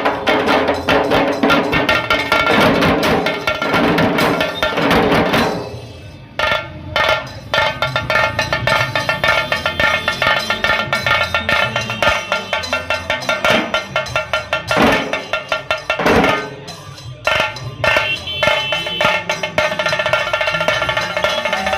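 Dhol tasha drums playing a fast, dense rhythm, with sharp stick strikes over the deeper dhol beats. The playing breaks off briefly about six seconds in and again around sixteen seconds, then starts up again.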